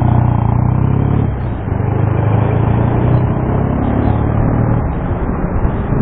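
Motorcycle engine running close alongside in traffic, a steady low note that fades after about four and a half seconds, over road and wind noise.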